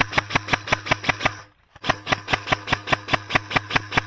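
Airsoft electric gun firing full-auto: rapid even shots at about eight a second over the gearbox motor's steady hum, in two bursts with a brief pause about one and a half seconds in.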